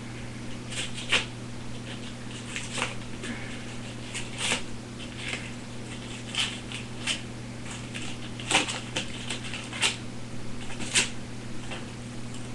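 A dull small knife blade sawing and shoving at a thick wad of paper, giving irregular scrapes and paper crackles; the blade is struggling to get through.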